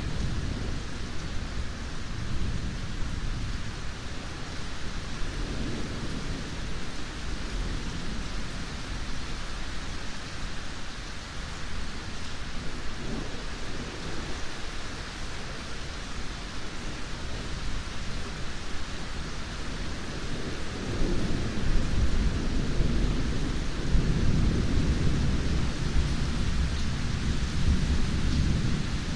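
Steady rain with low, rolling thunder rumbles that swell and fade, the loudest rumble building about three quarters of the way through and running on to near the end.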